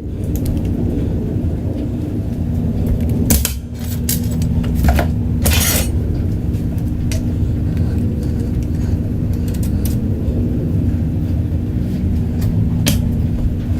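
A steady low machine hum, like a motor running, that starts suddenly at the outset. Several sharp metallic clinks and knocks sound over it, the loudest about a third of the way in and near the end.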